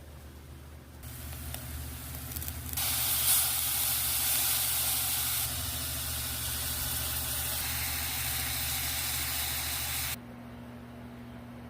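Coconut candy mixture of grated coconut, brown sugar and coconut milk sizzling in a hot pan. The hiss starts about a second in, grows louder near three seconds, and cuts off suddenly near the end.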